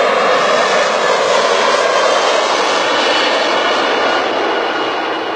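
Airbus A340 airliner on final approach passing low and close, the loud, steady jet noise of its four engines at approach power, fading slightly near the end as it moves away.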